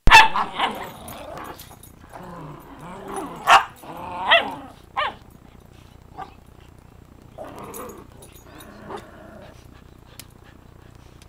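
Dogs play-fighting over a plush toy, growling with sharp barks and yips in between: a loud bark at the very start, another bark and a yelp about three and a half to four and a half seconds in, then quieter growling.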